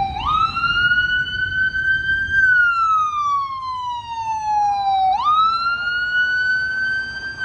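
Ambulance siren in wail mode: the pitch jumps up, climbs slowly, then slides back down over about five seconds, and the cycle starts again near the end.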